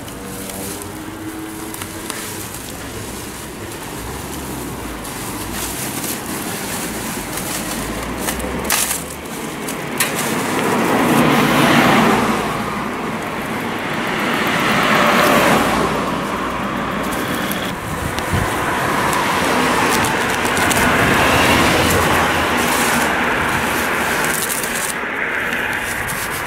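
Road traffic: passing cars rise and fade as a broad rushing noise, several times over, with bubble wrap crinkling and rustling as it is pulled off a motorcycle.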